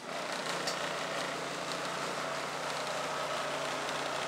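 Bosch clothes dryer starting up and running: a steady whirring rumble with a low hum that starts abruptly and holds level. The owner says the machine has made this noise since day one, even though it is levelled.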